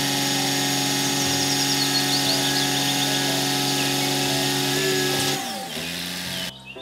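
Skip loader truck's engine and hydraulics running at raised revs while the lifting arms hoist a loaded skip container: a steady drone. About five seconds in, the pitch drops and it settles to a lower drone, then cuts off.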